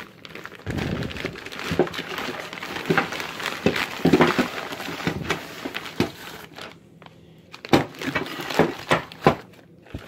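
Plastic bags around Bren gun parts crinkling and rustling as they are handled. Several sharp knocks come near the end as the bagged parts are moved and set down.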